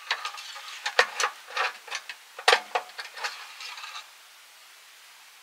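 Hands working at a snowblower's small petrol engine during an oil check: a quick run of clicks and scraping, with two sharp clicks about one and two and a half seconds in, stopping about four seconds in.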